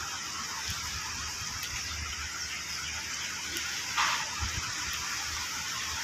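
Wind buffeting the microphone in irregular low gusts over a steady outdoor hiss, with a brief louder rush about four seconds in.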